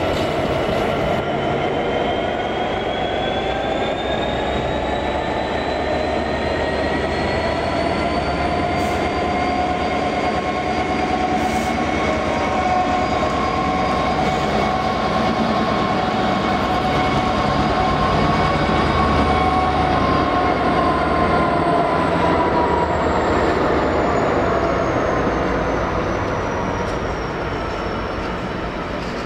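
Class 66 diesel locomotive (two-stroke V12) approaching and passing under power, a loud steady engine sound with a whine that rises slowly, then drops in pitch as it goes by. Its wagons then roll past close by.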